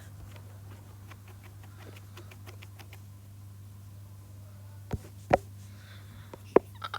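Steady low hum with faint scattered clicks, then three sharper taps or clicks in the second half.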